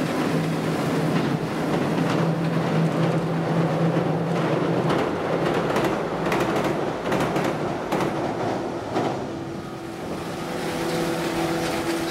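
Electric multiple-unit train passing close by. A steady hum as it approaches, then a quick run of clacks from the wheels over the rail joints in the middle, followed by a higher steady tone as it moves away.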